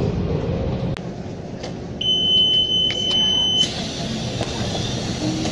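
Train rumbling, with a steady high-pitched electronic beep held for about a second and a half starting about two seconds in, followed by a high hiss.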